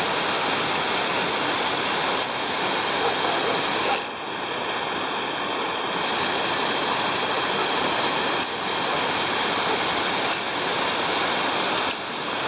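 Waterfall rushing: a steady, dense wash of falling water, dipping briefly in level a few times.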